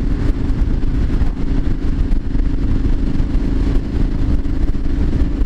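Triumph Street Scrambler 900's parallel-twin engine running at a steady cruising speed on the road, with heavy low wind rush over the microphone.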